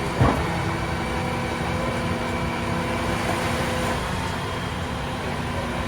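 A vehicle engine running steadily under load while towing a trailer, with a constant hum. A single sharp clunk comes just after the start, the loudest sound.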